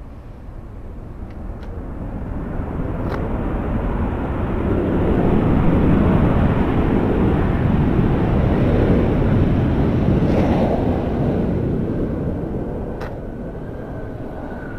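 Jet aircraft engine noise, a broad rumble that builds over a few seconds, holds through the middle and fades away, with a faint steady whine near the end.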